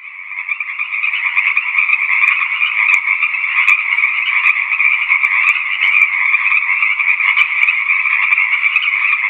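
A chorus of frogs calling in a dense, continuous trill, fading in at the start and then holding steady.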